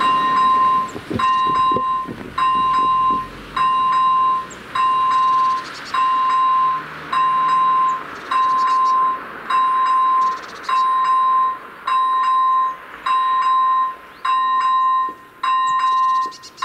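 AŽD ZV-01 electronic level-crossing bell sounding a steady repeating beep, about one beep every 1.2 seconds. It is the crossing's warning that a train is approaching.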